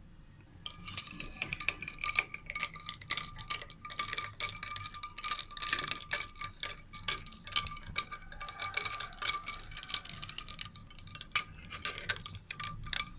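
Metal spoon stirring ice cubes in a glass tumbler of juice: quick, irregular clinks of spoon and ice against the glass, with the glass ringing on underneath.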